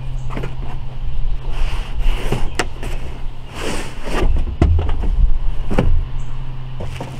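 Cardboard sliding and scraping as a long printed tripod box is drawn out of a cardboard shipping box, with a string of knocks and a few heavier low thumps as it is laid down on a plastic table. A steady low hum runs underneath.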